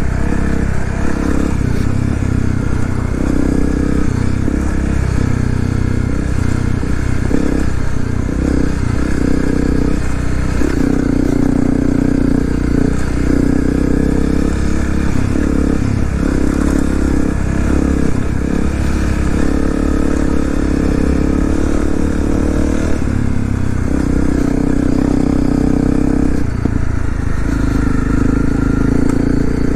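Honda CRF250L's single-cylinder four-stroke engine running while riding, its pitch rising and falling with the throttle and holding steady for a few seconds at a time, over a constant rushing noise.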